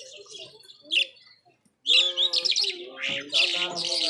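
Caged Irani Mashadi jhal lark singing: a short chirp about a second in, a brief pause, then a loud, rapid burst of varied song from about two seconds in.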